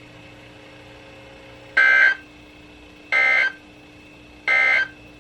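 Weather radio playing three short, identical digital data bursts (the EAS/SAME end-of-message code), each about a third of a second long and about a second apart, signalling that the alert message has ended. A faint steady hum and hiss from the radio lie underneath.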